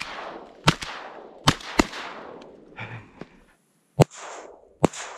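Shotgun shots, about five sharp reports spread unevenly over a few seconds, each trailing off in a short rolling echo; the one about four seconds in is the loudest.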